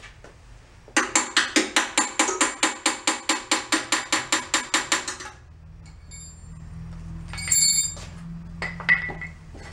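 Rapid, even metal taps, about five or six a second for some four seconds, knocking on a small air-cooled engine's carburetor float bowl to free a stuck float that is letting gas drip out. Two short metallic clinks of a tool follow near the end.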